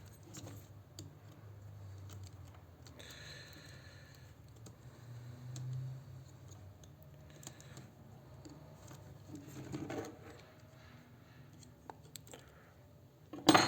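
Small clicks, taps and scrapes of tools and fingers working on the opened internals of an Asus Fonepad 7 tablet, with a short scrape about three seconds in and one sharp click near the end.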